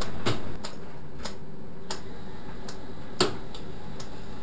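Washing machine running with a steady hum and sharp, irregularly spaced clicks and ticks, about two a second.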